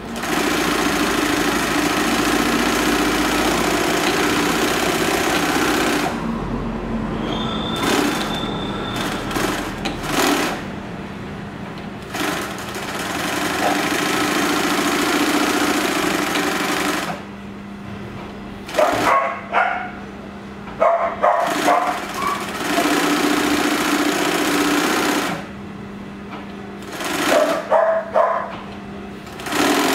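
Juki LS-1341 cylinder-bed walking-foot lockstitch machine sewing fabric in several runs of a few seconds each, stopping and starting. A steady motor hum continues between runs, with scattered clicks and rattles.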